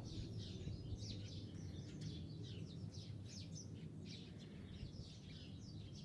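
Birds chirping faintly, many short chirps in quick succession, over a steady low background rumble.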